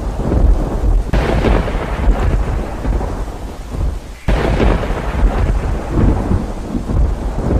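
Heavy rain with rolling thunder, a deep continuous rumble under the rain's hiss. The storm swells about a second in, eases briefly near the middle, then surges back suddenly.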